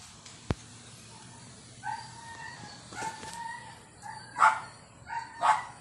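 Animal calls: a few drawn-out, steady-pitched cries, then two louder, harsher calls near the end. A sharp click comes about half a second in.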